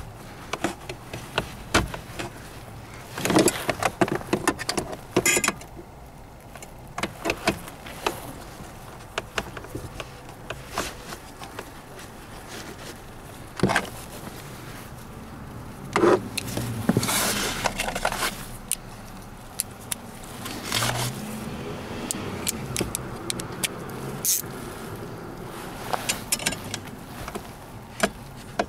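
Hand-tool and handling noise in a car's dashboard: irregular clicks, knocks and rattles of a screwdriver and hard plastic parts in the heater blower opening under the glovebox, with a few longer scraping stretches.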